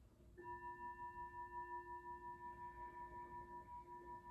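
A singing bowl struck once about half a second in, then ringing on with a steady tone whose loudness pulses and wavers.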